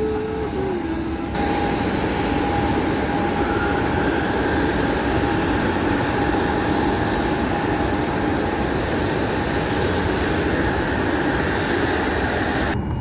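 Steady loud rush and rumble of airliner cabin noise from the engines and airflow, with a faint steady whine. It jumps up sharply about a second in and cuts off abruptly near the end.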